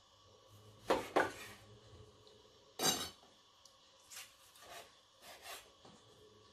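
Large kitchen knife slicing cooked chicken breast on a wooden cutting board, the blade knocking and scraping on the board: two strokes close together about a second in, the loudest about three seconds in, then several lighter ones.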